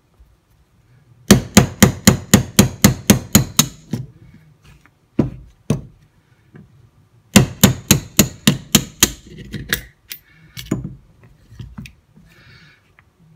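Brass-and-polymer hammer tapping a 1/8-inch pin punch to drive the frame pins out of a Smith & Wesson Bodyguard 380 pistol frame on a bench block. Two runs of quick, sharp taps, about four or five a second, with a few single taps between and after.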